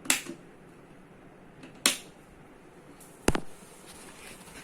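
Three sharp clicks or knocks, the second about two seconds after the first and the third a second and a half later; the last is the heaviest, with a low thump.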